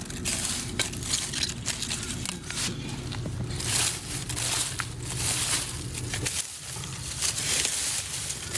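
Dry plant debris and weeds rustling, crackling and tearing under hands working in a flower bed, in many short irregular strokes. A low steady hum underneath stops about six seconds in.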